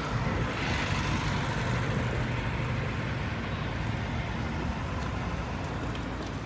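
An engine running steadily: a low, even hum under a broad rushing noise.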